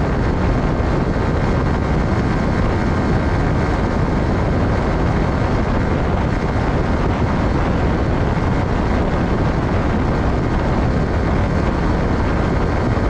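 Yamaha R15's 155 cc single-cylinder engine running steadily at high speed, under a heavy, even rush of wind on the microphone.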